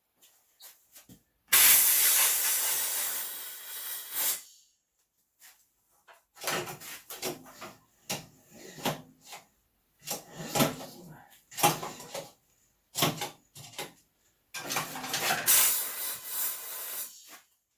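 WD-40 aerosol can sprayed in two bursts of about three seconds each into the snowblower engine's spark plug hole, the first about a second and a half in and the second near the end. Between them come light clicks and knocks of parts and tools being handled.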